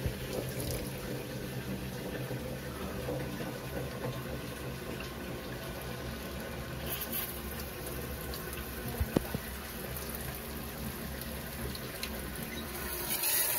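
Steady running water at a Bluegaz gas water heater whose water valve is leaking, with one sharp click about nine seconds in.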